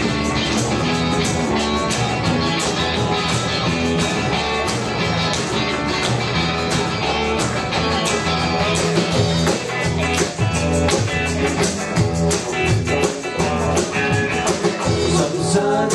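Live band playing an up-tempo rock-and-roll number: guitar over bass and drums with a steady beat, before the vocals come in.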